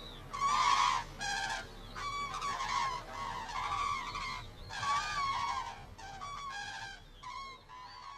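A large flock of cranes calling, many loud trumpeting calls repeating and overlapping one another.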